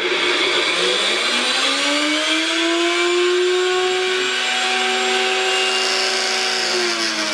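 Bullet-style personal blender motor spinning up to a steady whine over the first couple of seconds, running, then winding down in pitch near the end.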